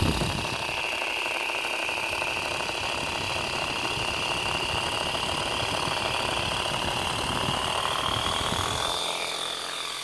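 Air Hogs Twin Thunder toy RC helicopter's electric motor and tandem rotors spinning at full throttle with a steady high whine and buzz. Near the end the whine rises in pitch and the low rumble drops away as the helicopter lifts off the table. The battery is nearly flat, with just enough power to pick it up.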